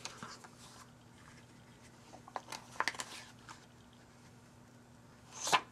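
Paper envelope being handled and a handheld circle punch set against it: faint paper rustles, a few small clicks around two to three seconds in, and a louder crunch of the punch cutting through the paper near the end.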